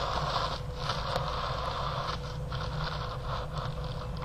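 Crinkly wrapping rustling and crumpling as it is handled close to the microphone.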